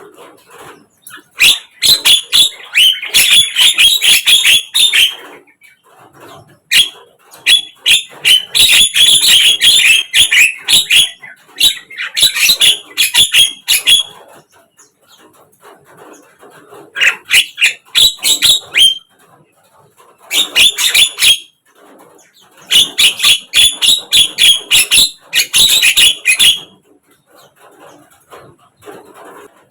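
Javan mynas (jalak kebo) giving harsh, rapid chattering calls in about six bouts of one to four seconds each, with short pauses between them.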